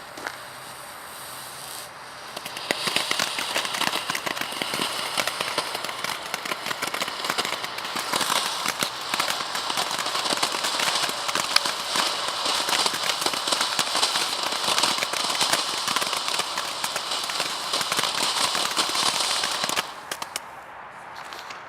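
Consumer firework giving off dense, rapid crackling and popping that starts about three seconds in, runs for about seventeen seconds and stops abruptly.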